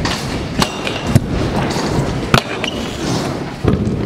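Scooter wheels rolling over a wooden skatepark ramp, a steady rumble broken by several sharp knocks and clacks.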